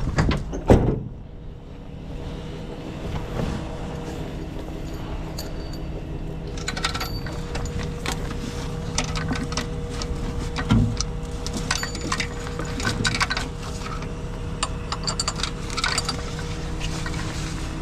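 Metal clinking and rattling of tow rigging being handled, over the steady hum of a running tow-truck engine, with one loud thump about a second in.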